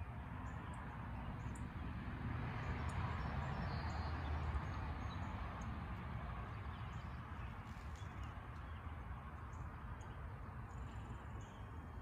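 Faint, scattered chirps and calls from songbirds at dawn over an even, low background noise. The background noise swells for a couple of seconds about three seconds in.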